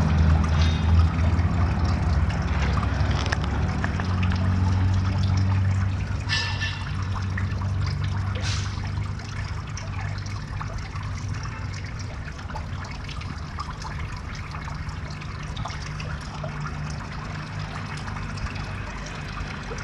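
Water trickling into a garden pond over a steady low rumble that slowly fades, with a brief high-pitched sound about six seconds in.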